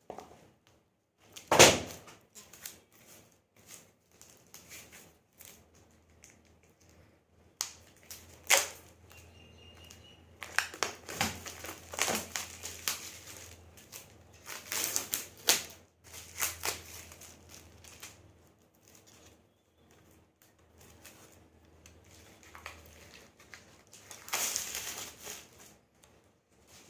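Plastic packaging around a new cricket bat being handled and pulled open: irregular crinkling, rustling and tearing, with one sharp, loud crackle about a second and a half in.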